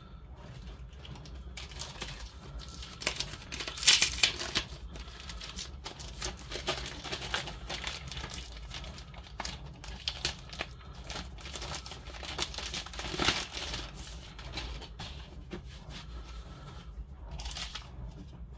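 Crinkling and rustling of plastic wrapping with light clicks and taps as a replacement laptop screen panel is handled, loudest about four seconds in and again near thirteen seconds.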